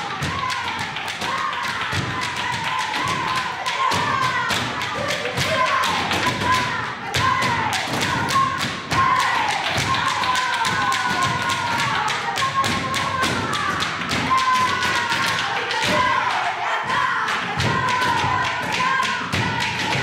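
Flamenco palmas: a group clapping hands in a fast, dense rhythm, with dancers stamping their feet on the floor. A voice sings a wavering flamenco-style melody over the clapping.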